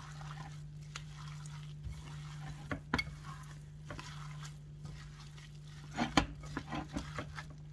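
Gloved hands mixing a wet batter of chopped dandelion greens, tomato and onion in a bowl: soft squishing and rustling with a few short clicks, over a steady low hum.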